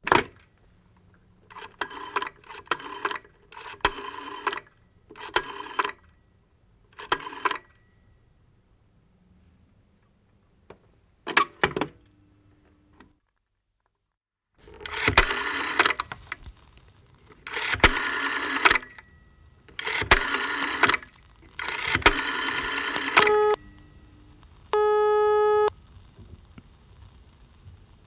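Old rotary telephone dial being turned and whirring back over several digits: five short returns, a few clicks, then four longer, louder returns. A single short steady tone sounds near the end.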